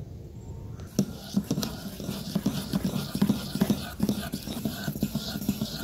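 Wire balloon whisk beating cake batter in a stainless steel bowl, starting about a second in: quick, rhythmic strokes of the wires against the bowl, about three to four a second.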